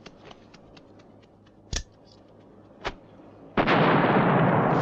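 Faint scattered ticks, then two sharp pops about a second apart. About three and a half seconds in, a large firecracker goes off in a loud blast that carries on as a long noisy rush.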